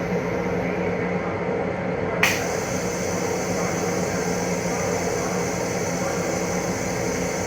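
Steady hum and whir of an M7 commuter railcar heard inside its small restroom, the car's ventilation and running equipment, with one sharp click about two seconds in.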